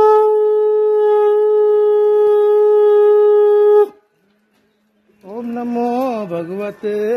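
A conch shell (shankh) blown in one long, loud, steady note that cuts off about four seconds in. After a second of silence a voice starts chanting.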